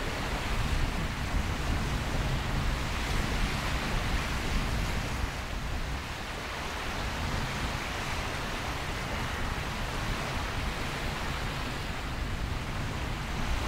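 Steady wind noise on the microphone, a low rumble with a hiss above it, mixed with the wash of choppy water.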